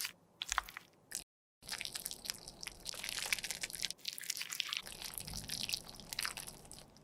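Close-miked crunching and scraping of cosmetic product being worked with tools, dense with small crackles and clicks, in short clips that cut off abruptly.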